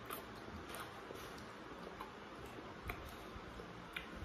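Faint eating sounds of a man chewing okra and picking pieces from a heap, with a handful of small sharp clicks, the sharpest about three and four seconds in.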